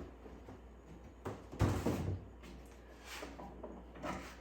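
Cardboard box and packaging being handled: a few knocks and scrapes, the loudest a dull thump a little under two seconds in.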